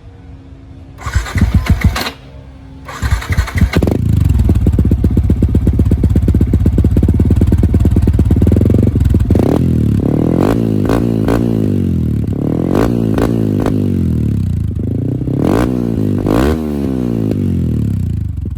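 Yamaha Y15ZR's 150cc single-cylinder four-stroke engine breathing through a Red Leo Type 3 32mm stock-look exhaust. It is cranked twice and catches about four seconds in, idles, then is blipped through a string of quick revs.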